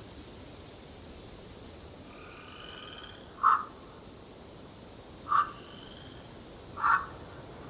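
Three short, loud animal calls, one every second and a half to two seconds, over faint distant bird whistles and a steady background hiss.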